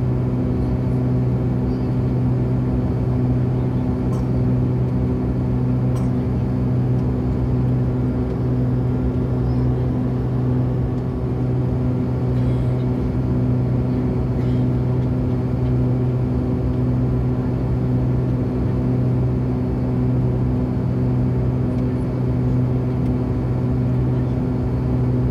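Jet airliner cabin noise at a window seat beside the engine: a steady drone of turbofan and rushing air with a strong low hum, as the plane climbs at about 700 km/h.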